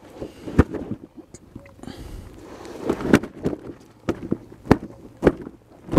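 Several sharp knocks and thumps over low rustling, handling noise.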